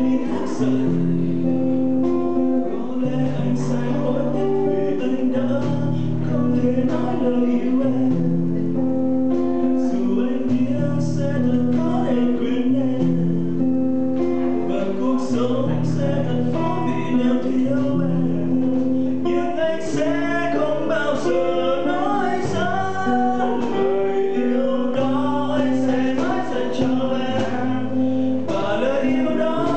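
A man singing a song to his own acoustic guitar accompaniment, the guitar playing held chords over a bass line that repeats every couple of seconds. The voice is strongest in the last third.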